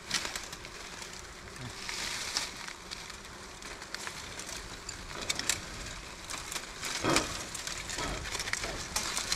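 Breath blown in puffs to drive incense smoke onto a wild bee nest, a hissing that swells several times. Scattered light clicks and rustles among dry bamboo run through it.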